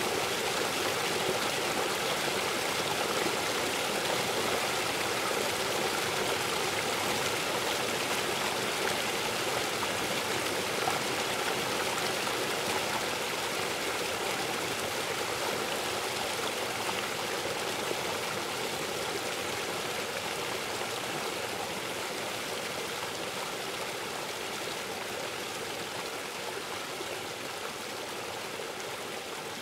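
Steady rushing of a fast-flowing stream, an even water noise with no separate splashes, easing off slightly in loudness over the last part.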